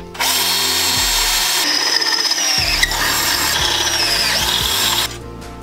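Cordless drill boring through aluminium bracket stock held in a vise, running for about five seconds before stopping, with a wavering high squeal from a very blunt drill bit.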